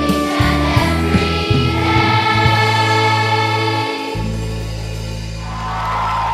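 Children's choir singing the closing phrase of a Christmas carol over a steady instrumental accompaniment. The voices end on a long held chord that fades out about five seconds in.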